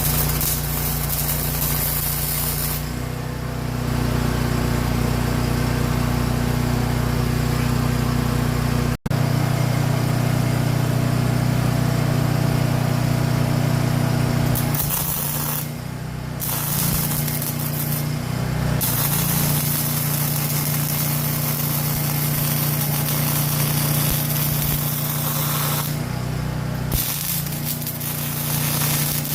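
Metal-fabrication shop work: a steady low electrical hum under a continuous hiss, which stops briefly several times.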